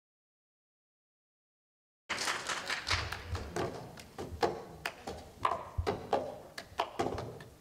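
About two seconds of dead silence, then a cup-game rhythm begins: cups knocked, slapped and set down on a tabletop by hands, a run of sharp taps and low thumps a few times a second.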